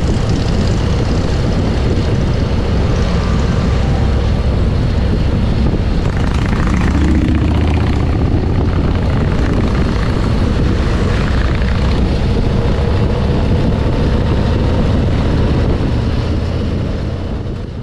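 Harley-Davidson Road Glide Special motorcycle running at road speed, its engine mixed with heavy wind rushing over the microphone, steady throughout and fading out at the very end.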